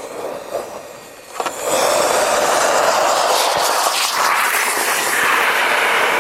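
Homemade sugar rocket motor igniting: a weaker fizz, a sharp click about a second and a half in, then a loud steady rushing hiss as the motor burns. The rocket burns in place without lifting off, and the motor melts down.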